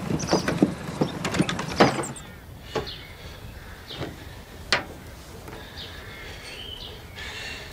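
Horse hooves clopping for about the first two seconds, then quieter open-air ambience with a few single knocks and short high chirps.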